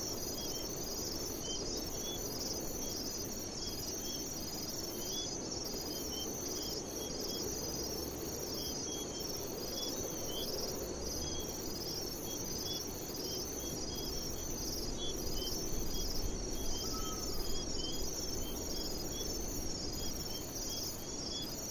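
A steady chorus of insects chirping: several overlapping high-pitched pulsing trills with short chirps repeating at an even pace, over a low background rumble.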